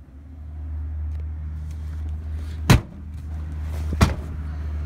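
Two sharp knocks inside the cabin of a Chevrolet Suburban, the first louder and the second about a second and a half later, over a steady low hum that grows louder.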